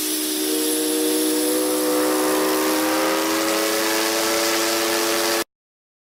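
RMS Arundel Castle's ship's steam whistle sounding one long blast of several tones together over heavy hiss. The pitch rises slightly at first, then holds steady, and the blast cuts off abruptly about five and a half seconds in.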